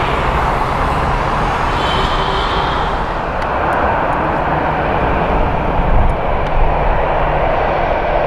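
Jet airliner engines running, a loud, steady rumble. A faint high whine shows about two seconds in.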